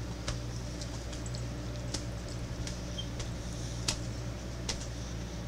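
A steady low electrical hum with a few faint, scattered clicks and ticks: small mouth and handling noises while jelly beans are chewed.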